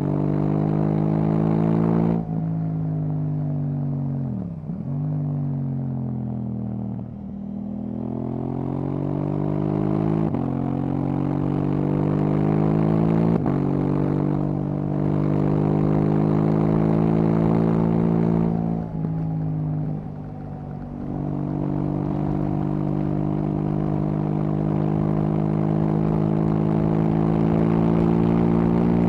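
KTM 790 Duke's parallel-twin engine through an Akrapovic exhaust, revs climbing and breaking off repeatedly as the rider accelerates and shifts up through the gears, with two dips in revs about five and twenty seconds in. In the last third it holds steady cruising revs, with wind noise underneath.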